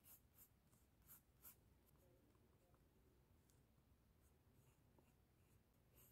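Very faint scratching of a graphite pencil sketching on sketchbook paper, in short separate strokes.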